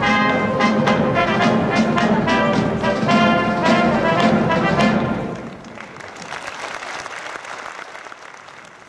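Military brass band playing with a regular beat, the music ending about five seconds in. Audience applause follows and slowly fades.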